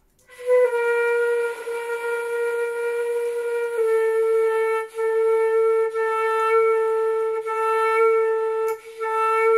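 Transverse flute holding a long tone in the middle register, with a little breath hiss. About four seconds in the pitch sags slightly, as the flute is let drop on the lip, and the lower note then carries on with two brief breaks.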